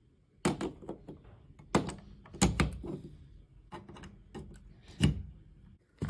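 A string of short, sharp plastic clicks and knocks, about eight of them, from a USB wall charger being plugged into an electrical outlet and its cable and a plastic mask being handled.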